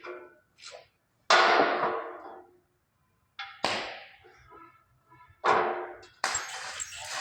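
Metal struck three times, each hit ringing briefly, then an arc-welding arc is struck near the end and crackles steadily as the stick electrode burns.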